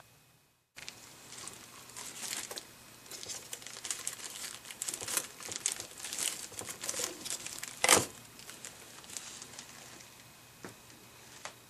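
Crinkly rustling and scraping of hands handling food and kitchen materials, with a single sharp knock about eight seconds in.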